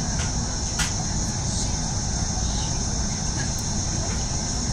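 Cabin of a Mercedes-Benz Citaro G articulated diesel city bus on the move: a steady low engine and road rumble under a steady high-pitched hiss, with a few light rattles, the clearest about a second in.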